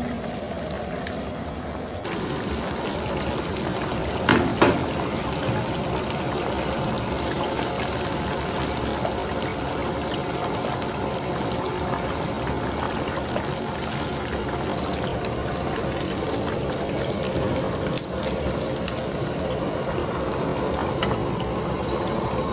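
Battered fish pieces deep-frying in a pan of hot oil: a steady sizzle and crackle of bubbling oil, with a brief knock about four seconds in.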